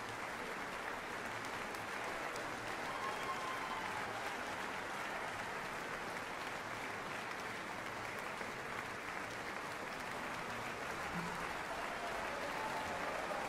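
Large theatre audience applauding, a dense, steady clapping that holds at the same level throughout.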